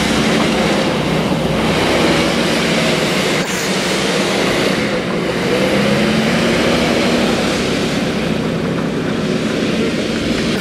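GMC tow truck's engine revving hard as it spins its wheels through donuts on grass, the engine pitch rising and falling as the throttle is worked.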